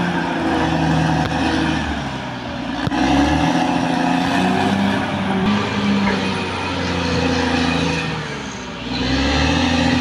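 Caterpillar D6R XL bulldozer's diesel engine working under load, its pitch rising and falling as the throttle changes, with short dips in level about two and a half seconds in and near the end.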